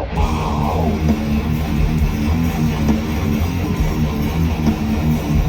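Hardcore punk band playing live: a loud electric guitar and bass riff with no vocals.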